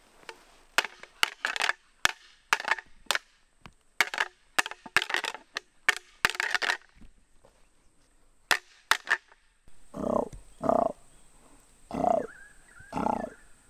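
Deer antlers rattled and clashed together: irregular bursts of sharp clacks and knocks over most of the first nine seconds, a rattling sequence meant to draw in a fallow buck. Near the end come four deep croaking groans about a second apart, the fallow buck's rut call.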